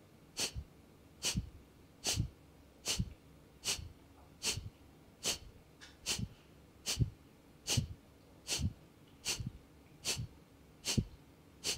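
A woman's rhythmic qi hua fire breath: short, forceful exhales driven by snapping the belly in, about fifteen in a row at an even pace of a little more than one a second.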